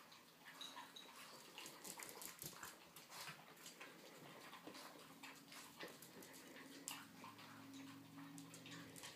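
Boston terriers eating from food bowls: faint, scattered crunching, licking and clicks of the bowls, with a faint low drone in the last couple of seconds.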